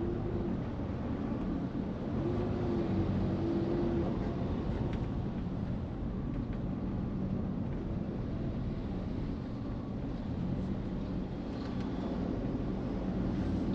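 Car driving on a road, heard from inside the cabin: a steady hum of engine and tyre road noise.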